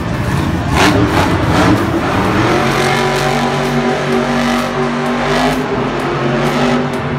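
Monster Mutt monster truck's supercharged V8 revving hard as it spins donuts in the dirt. It settles into a steady, high-revving drone from about two seconds in.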